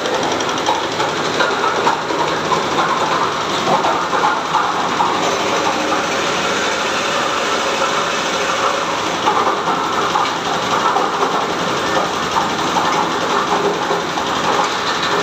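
Cocopeat machine running under load, its drum beating coconut husk into coir dust, belt-driven by a single-cylinder diesel engine: a loud, steady mechanical din with a rattling clatter.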